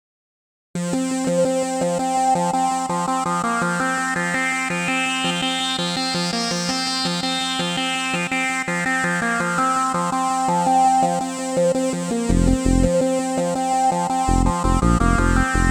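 Electronic synthesizer music: sustained synth chords with a rising and falling sweep, joined by a pulsing kick-drum beat about twelve seconds in.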